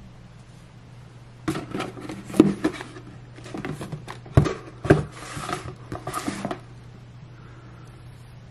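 Cardboard packaging box being picked up and handled: about five seconds of knocks, scrapes and rustling, with a few sharper knocks as it is set against things, then it stops about two seconds before the end. A steady low hum lies underneath.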